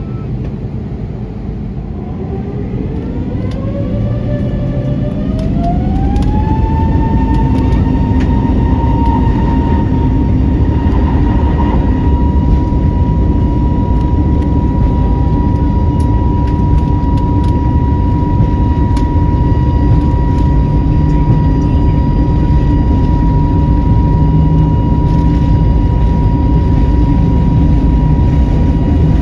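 Airbus A321neo's turbofan engines spooling up to takeoff thrust, heard from inside the cabin: a whine rises in two steps over about five seconds, then holds steady over a loud rumble as the aircraft rolls down the runway.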